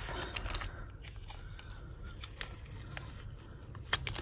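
Small clicks and light rustling of costume jewellery and its packaging being handled, with a sharper click near the end.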